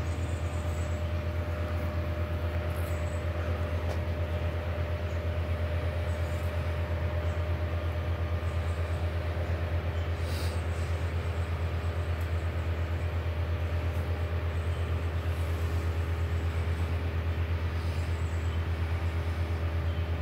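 A steady, low machine hum with a fast, even throb and a faint steady whine above it.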